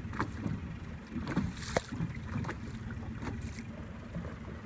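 Steady low rumble of a boat on harbour water, with a few brief sharper knocks and clicks, the strongest a little under two seconds in.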